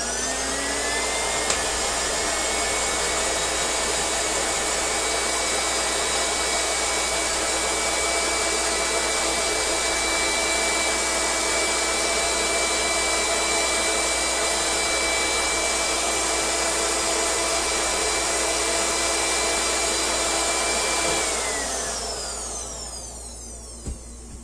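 Countertop blender motor running at a steady pitch while it grinds sesame seeds and oil into tahini paste. After about 21 seconds it is switched off and winds down over a couple of seconds, and a sharp knock follows near the end.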